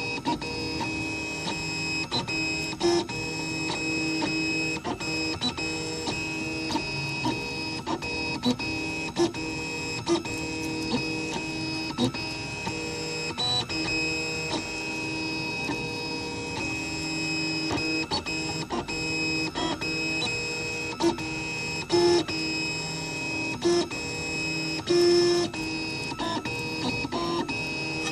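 3D printer running, its stepper motors giving a whine of several steady tones, broken by frequent short, irregular blips.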